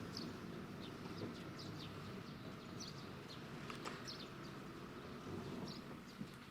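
Small birds chirping, short high chirps scattered throughout, over a faint low outdoor background rumble.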